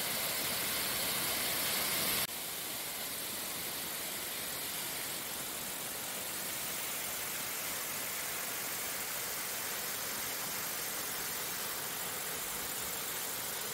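Steady rushing roar of a waterfall pouring down a rock face onto rock. It drops a little in level and changes slightly about two seconds in.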